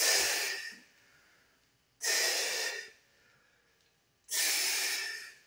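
A man breathing out hard three times, about two seconds apart, with the effort of resistance-band squat repetitions.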